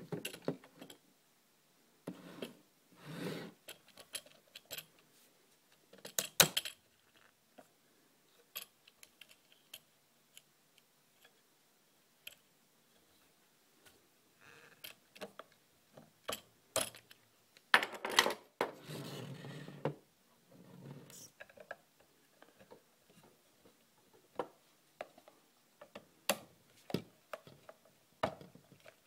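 Hands fitting a plastic bayonet quick-release payload mount onto a multicopter frame: irregular clicks, clacks and rubbing of plastic and metal parts, with the sharpest clacks about six seconds in and a little past the middle.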